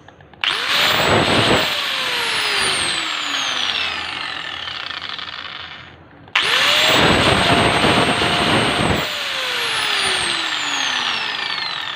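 Hand-held power tool's brushed electric motor switched on twice, about half a second in and again about six seconds in. Each time it reaches full speed within a fraction of a second, runs for one to two and a half seconds, then winds down slowly after the switch is released. This is a test run after fitting new carbon brushes.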